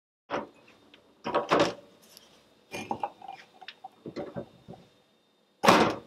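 Crockery knocking and clinking on a hard kitchen counter: a handful of separate short knocks and clatters, the loudest just before the end.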